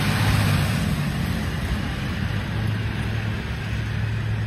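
A school bus driving along a road: a steady low engine hum with road noise, growing slightly fainter as the bus pulls away.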